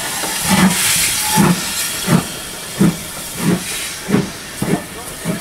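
Steam locomotive's exhaust chuffing as it hauls a train out of a station, about one and a half beats a second and quickening slightly, over a steady hiss of steam.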